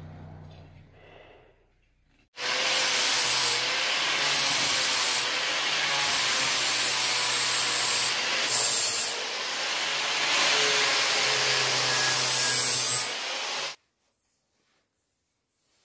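Power sanding tool running against a workpiece: a steady abrasive rasp over a low motor hum, starting abruptly a couple of seconds in and cutting off abruptly near the end.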